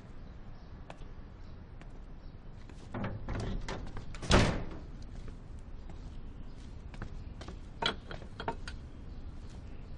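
A door shut with a single sharp thud about four seconds in, just after a short rustle of movement; a few light knocks and clicks follow near the end.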